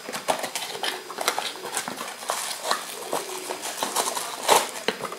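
Irregular clicks and light knocks from small spinning reels being handled and set down on a cloth-covered bench, the loudest about four and a half seconds in.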